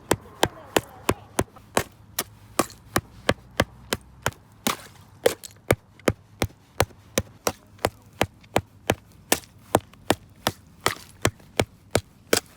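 A stone striking ice over and over to break it: sharp knocks in an even rhythm, about three a second.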